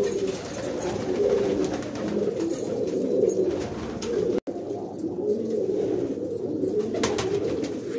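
Domestic pigeons cooing continuously, many voices overlapping into a steady low murmur, broken by a momentary gap just past halfway.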